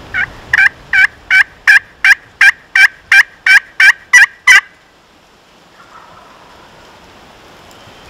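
A long series of about thirteen loud hen-turkey yelps, evenly spaced at about three a second, each note breaking downward in pitch; the series stops about four and a half seconds in.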